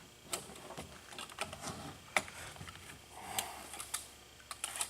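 Light, irregular plastic and metal clicks and knocks as a homemade battery adapter holding four C batteries is handled and slid into a Paslode cordless nailer's battery compartment.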